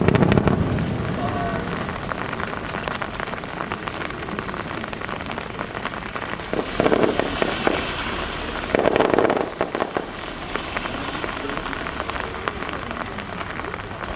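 Steady rain falling, with a firework shell bursting in a deep boom right at the start that dies away over a couple of seconds. Two shorter, louder bursts come about halfway through.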